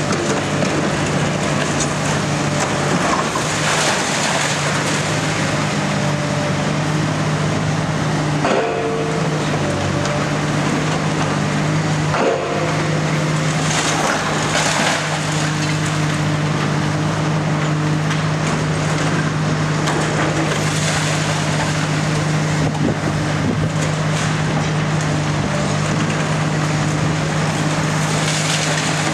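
Komatsu PC 490-11 HRD high-reach demolition excavator working: its diesel engine runs with a steady low drone under the crunching and clattering of concrete and masonry being broken off the building, with several short, louder crunches along the way.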